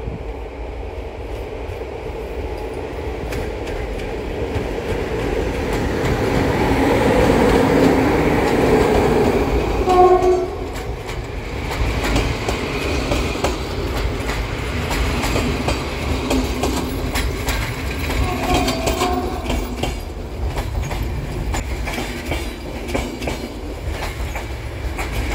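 An electric locomotive hauling a passenger train approaches and passes, its running noise building up. Its horn gives a short blast about ten seconds in and a fainter one later. The wheels then clack over rail joints as the coaches go by.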